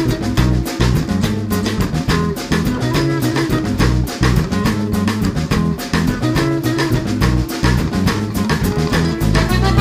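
Instrumental background music with bass notes and a steady drum beat.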